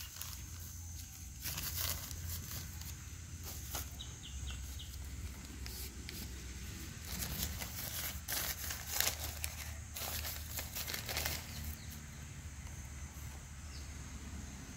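Hands rubbing and pressing finger millet flour in a clay pot, with newspaper crinkling: irregular bursts of rustling and scraping, busiest in the middle.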